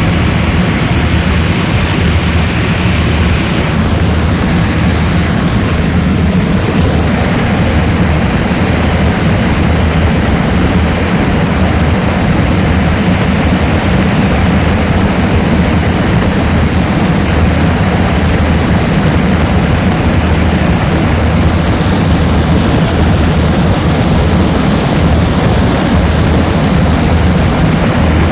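Propeller aircraft engine running steadily, a loud, even drone with a strong low hum.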